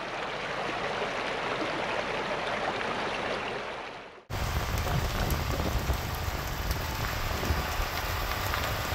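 Shallow rocky creek babbling, a steady rush of water over stones that fades out about four seconds in. It gives way to the steady low rumble of a Class C motorhome driving, road and engine noise heard from inside.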